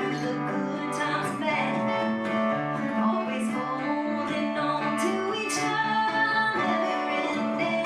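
Acoustic guitar strumming with a voice singing over it: a live acoustic song performance.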